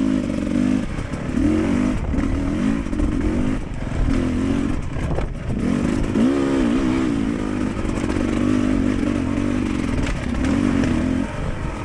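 Dirt bike engine revving up and down as the throttle is worked on and off, its pitch rising and falling repeatedly, with a short drop about five seconds in.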